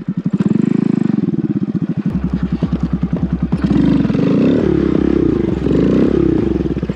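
Small single-cylinder Honda Grom motorcycle engine running under the rider, pulsing steadily at first. About halfway through it is revved up and down several times, its pitch rising and falling.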